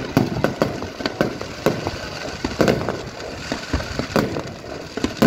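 Aerial fireworks shells bursting overhead in an irregular string of bangs, about two a second.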